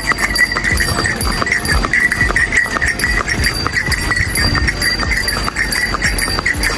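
Horse being ridden at a walk: hooves knocking and bells on its harness jingling in a steady rhythm of about two pulses a second.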